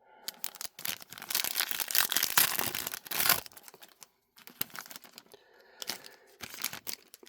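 Trading-card pack wrapper being torn open: a dense ripping and crinkling for about three seconds, then lighter crinkles and clicks as the wrapper is pulled apart and the cards are handled.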